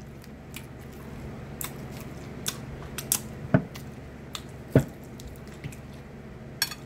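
Close-miked chewing and wet mouth smacks of a person eating, with scattered clicks and two louder smacks, about three and a half and nearly five seconds in, over a low steady hum.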